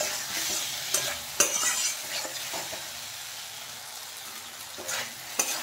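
A flat steel spatula stirring and scraping potatoes and ridge gourd around a kadai as they fry in oil and spice paste, with a steady sizzle. Sharp scraping strokes come at the start, about a second and a half in, and twice near the end. The vegetables are at the end of the sauté (kashano) stage, cooked down in the masala.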